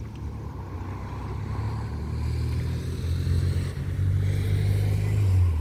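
Low jet rumble of an airliner on approach to land, building over a few seconds and then dropping off sharply near the end, with a faint whine above it.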